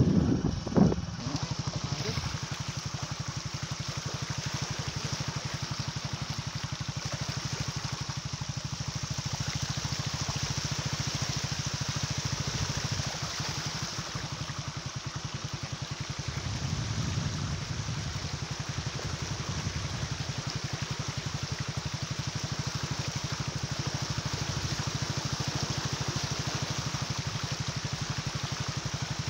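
A small engine running steadily at an even pace, with a steady hiss of water and wind over it as the vehicle moves through floodwater.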